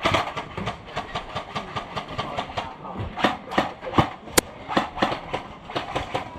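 Airsoft guns firing rapid, irregular single shots, several a second, as sharp clicks and cracks, with one sharper crack about four seconds in.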